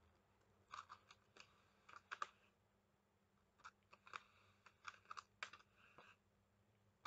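Wooden hand carders with wire teeth brushing a merino wool and tussah silk blend: runs of quick, scratchy, crunching strokes in about five short bursts. The crunching is what the carder takes as a sign that she is carding wrong.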